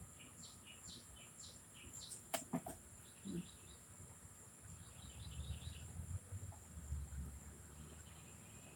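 Mostly quiet: a person chewing a peanut butter cup with mouth closed, soft and low, with faint high chirps repeating in the background and a couple of small clicks a little over two seconds in.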